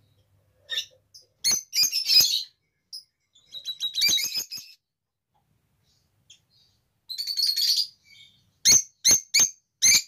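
Peach-faced lovebirds chattering: three bursts of rapid, shrill chirps with pauses between them, then four sharp single calls in quick succession near the end.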